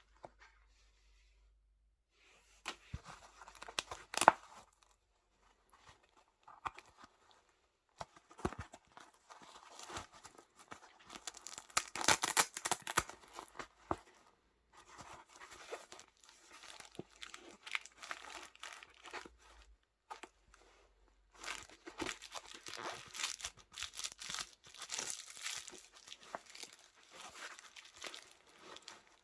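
Packaging being unwrapped and opened by hand: stretches of crinkling and tearing wrapping, broken by a few sharp clicks and knocks, the loudest about four seconds in.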